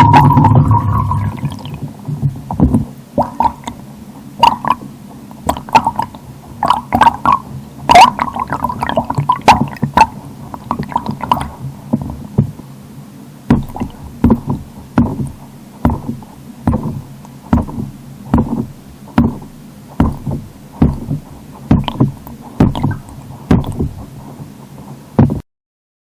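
Underwater sound picked up by a hydrophone: a string of sharp knocks over a steady low hum, irregular at first and then about one a second, stopping shortly before the end.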